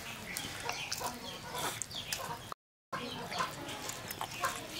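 Chickens clucking, with a moment of dead silence a little past halfway.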